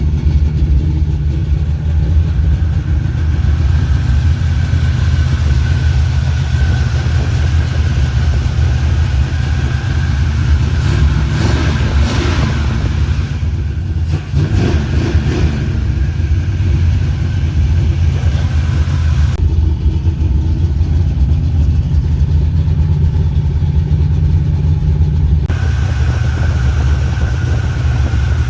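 1986 Chevrolet C10's 350 small-block V8, freshly fitted with new spark plugs, running steadily.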